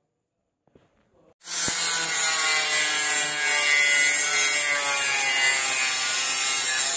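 Electric angle grinder with a cut-off disc cutting steel. It starts suddenly about a second and a half in, then runs as a loud, steady high whine with a harsh grinding hiss, its pitch dipping slightly as the disc bites under load.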